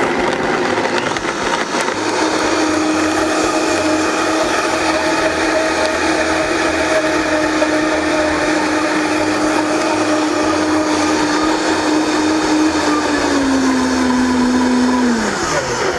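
Vitamix high-powered blender running, chopping vanilla beans in water. The motor's pitch holds steady, drops a little about thirteen seconds in, then winds down near the end as it is switched off.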